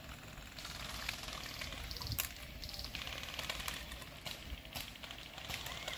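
Airsoft guns firing across the field: scattered single sharp shots and short bursts of rapid clicking on full auto, the longest burst about three seconds in.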